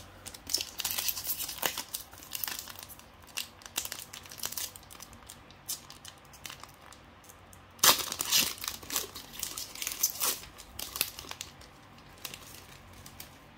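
Pokémon trading-card booster pack wrapper crinkling and being torn open by hand, in irregular crackles, loudest about eight seconds in.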